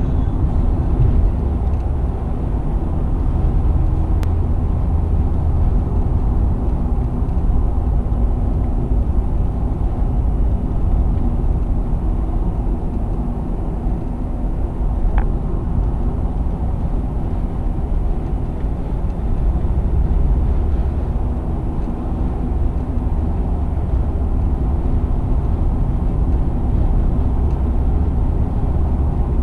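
Interior noise of a moving car: a steady low rumble of engine and tyre road noise heard from inside the cabin.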